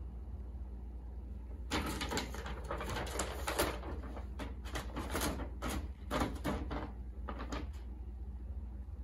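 Brown paper shopping bag crinkling and rustling in irregular bursts as a cat pushes its head around inside it. The crinkling starts about two seconds in and dies away near the end.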